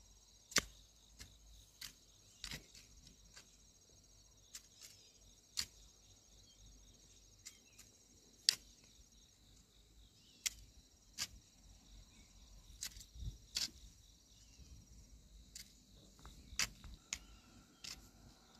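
Sharp, irregular knocks and clicks, some single and some in quick pairs, over a steady high-pitched chorus of insects.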